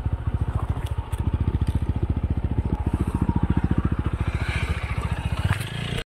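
Motorcycle engine running at low revs on a dirt track, a fast even beat of firing pulses that loosens just before the sound cuts off at the end.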